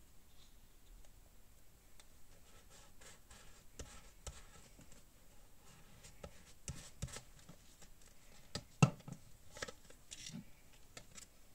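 Faint rustling and light tapping of paper and craft supplies being handled on a desk, with one sharper tap about three-quarters of the way through.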